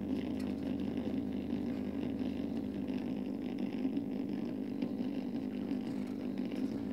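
Steady low hum, with the faint scratching of a felt-tip permanent marker drawing on paper over it.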